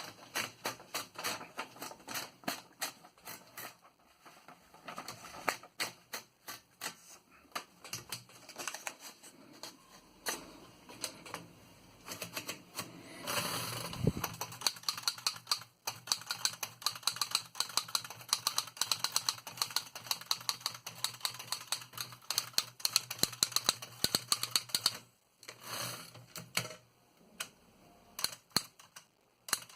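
Keys of a 1908 Remington Standard No. 10 manual typewriter being typed in quick, irregular runs of sharp clacks, with short pauses. About halfway through there is a longer rasping sweep that ends in a thump.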